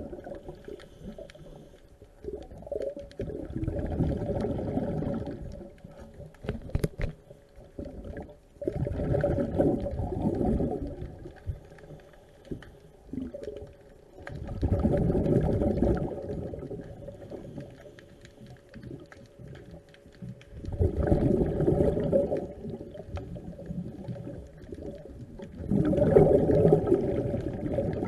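Scuba diver breathing through a regulator underwater: exhaled bubbles gurgle out in bursts of about two seconds, roughly every five to six seconds, with quieter stretches between. A faint steady tone runs underneath.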